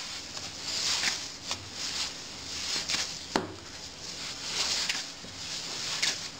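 Hands kneading a crumbly corn-and-cheese dough on a work surface: soft pushing and rustling strokes about once a second, with a few sharp taps.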